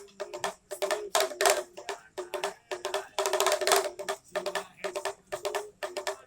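Small pitched hand drum beaten in about seven short, rapid rolls with brief pauses between them, the drum of a street monkey show.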